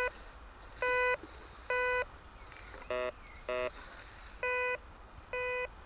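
Metal detector giving target tones through its speaker: about six short beeps, one every second or so, most at the same pitch, with two lower, buzzier tones in quick succession midway. The detector is signalling a target that the operator reads as a pull tab.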